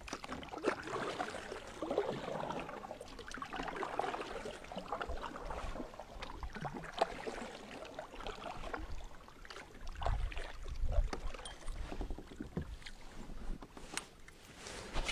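Double-bladed kayak paddle dipping and splashing in calm river water, stroke after stroke, as the kayak moves along.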